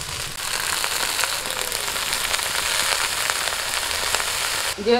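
Wet, freshly washed bathua greens dropped into hot mustard oil in a wok, sizzling and crackling steadily. The sizzle stops abruptly near the end.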